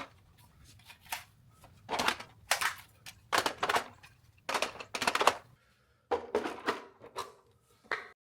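A series of about a dozen short, uneven clatters and knocks, each lasting a fraction of a second, with brief gaps between; they stop just before the end.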